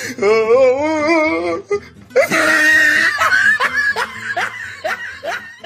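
A laughing sound effect: a long wavering vocal note, then a loud shrieking burst, then a run of short laughs that fade away.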